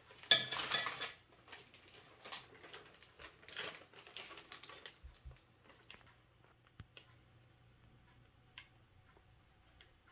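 Individually wrapped hard candies poured from a bag onto a plastic tray: a loud burst as they land about half a second in, then a few seconds of wrappers crinkling and rustling, and a few faint clicks near the end.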